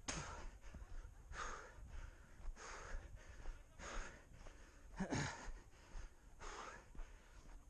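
A runner's heavy, rhythmic breathing, a hard breath about every second and a quarter, over a steady low rumble.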